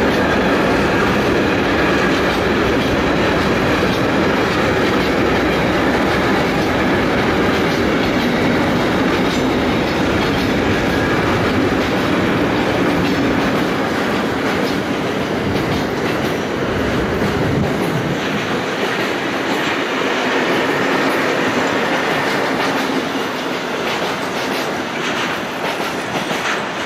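Intermodal freight train's container and tank-container wagons rolling past, a steady, loud rumble. Partway through it grows a little quieter and the deep rumble thins out.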